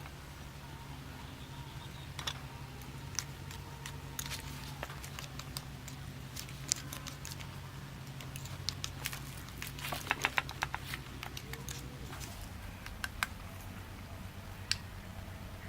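Scattered light clicks and taps, with a quick run of about half a dozen clicks about ten seconds in, over a steady low hum.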